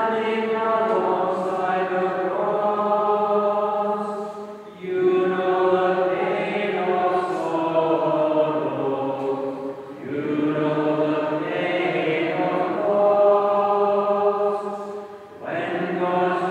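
Congregation singing a slow hymn chorus unaccompanied, led by a song leader, in long held phrases with short breaks for breath about every five seconds.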